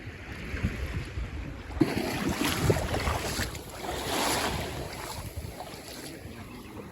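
Sea water washing and lapping at the shore, with wind buffeting the microphone; it swells louder for a couple of seconds in the middle.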